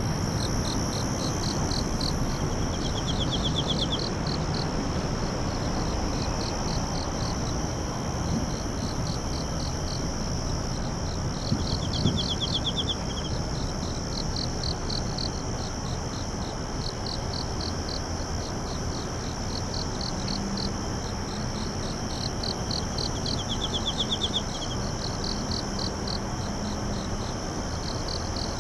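Night-time chorus of crickets and other insects: a steady high trill with rhythmic chirping over it, and three short, slightly lower buzzing trills scattered through, over steady low background noise.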